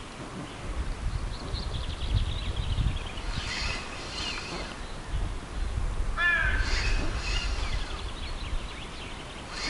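Wild birds calling: a run of quick high chirps, then a short harsh call about six seconds in, over a low rumble of wind on the microphone.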